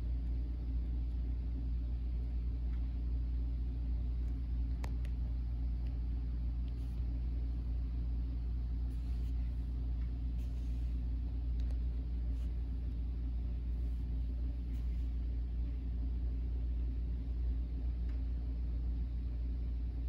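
Steady low mechanical hum of the salmon tank's running equipment, unchanging throughout, with a faint tick or two about five seconds in.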